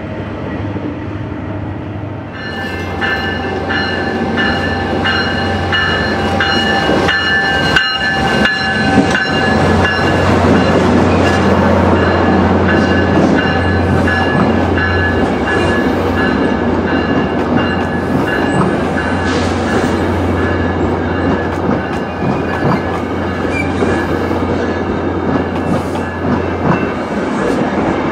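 A New Mexico Rail Runner Express commuter train, diesel locomotive and bilevel cars, rolling past close by: a steady low diesel drone with wheels clicking over the rail joints and steady high ringing tones on top. It is quieter for the first two seconds, and the drone stops shortly before the end.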